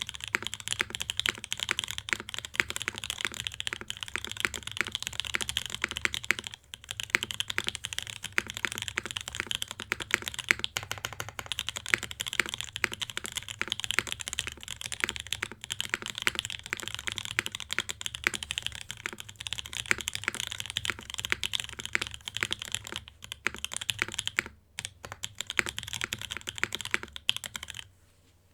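Steady fast typing on a Dunkin60 60% custom mechanical keyboard with lubed OP Black switches, GMK Cafe keycaps, an aluminium plate and an O-ring mount, giving a dense stream of keystrokes. The typing breaks briefly twice and stops just before the end.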